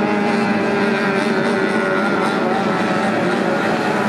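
Racing outboard motor of a tunnel-hull powerboat running at speed, a steady engine note that wavers slightly in pitch.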